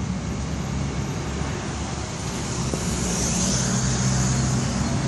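Steady low rumble of road traffic with an engine running, and a hissing rush about three seconds in.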